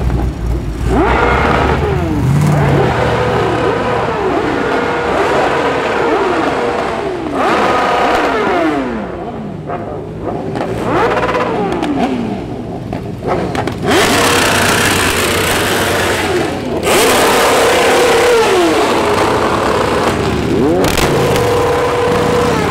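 Performance engines revving hard over and over, each rev climbing to about the same top and dropping back, sometimes held briefly at high revs. Bursts of loud rushing noise come in from about fourteen seconds in.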